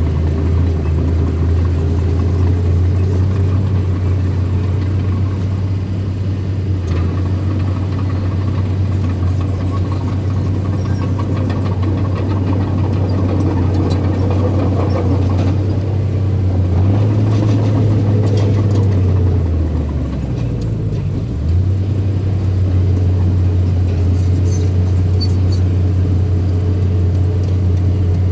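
Small bulldozer's engine running steadily with a strong low hum. About two-thirds through, its pitch sags for a second or two, then returns, and there are a few faint metallic clanks.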